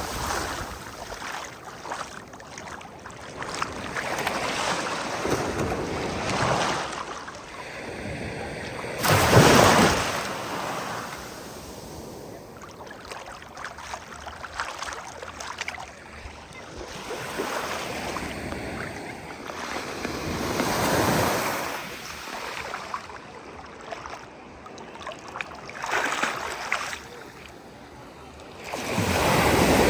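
Sea waves breaking on the shore, a steady wash of surf that swells with each break; the loudest breaks come about nine seconds in and again near the end.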